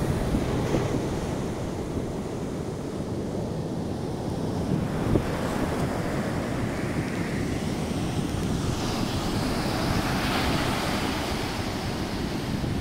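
Wind buffeting the microphone over the steady wash of surf breaking on the shore, swelling a little in the later part.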